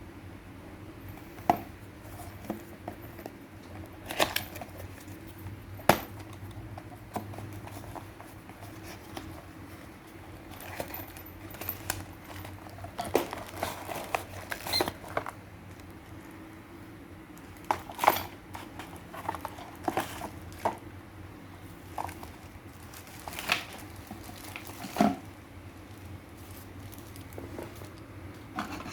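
Handling and opening a small product box and its packaging: scattered clicks, taps and knocks with bursts of rustling and crinkling.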